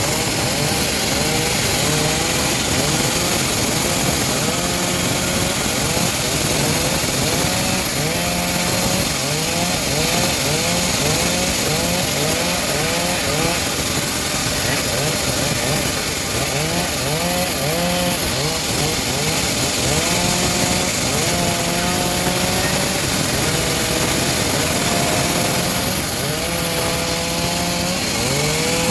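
Homemade bandsaw mill running and sawing through teak wood, a loud steady machine noise with short rising whines that repeat about once or twice a second.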